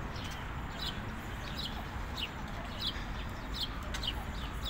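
A bird calling with short, high, falling chirps, repeated about once every two-thirds of a second over a steady background hiss.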